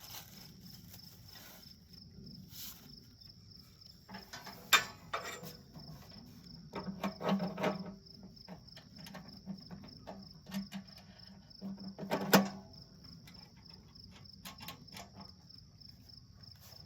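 Crickets chirping steadily, with knocks and clanks from woodstove parts being handled and fitted. The sharpest knocks come about five seconds in and about twelve seconds in, with a short run of rattling in between.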